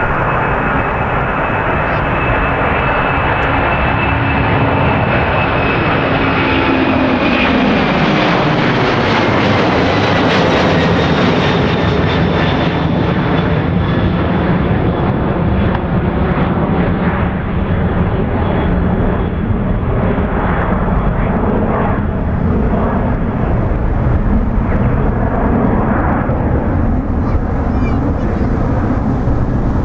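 Boeing 767-300 airliner's twin turbofan engines at takeoff thrust, a loud steady roar with a high whine. About seven to eight seconds in, the whine and the lower hum fall in pitch as the aircraft passes overhead, and a rougher, crackling roar follows as it climbs away.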